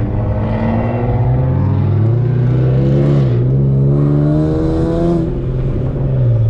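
Turbocharged Infiniti G37's V6 engine, heard from inside the cabin, pulling hard with a note like a GTR. The pitch climbs, drops at a gear change about three seconds in, and climbs again before easing off about five seconds in.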